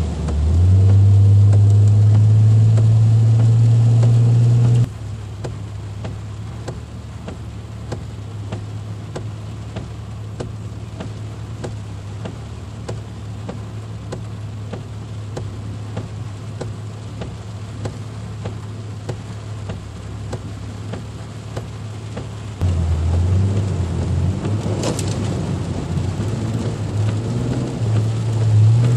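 Car interior noise while driving in heavy rain: a low engine and road drone, loud for the first few seconds and dropping abruptly about five seconds in. A quieter steady hiss of rain and road noise follows, and the drone returns louder and uneven near the end.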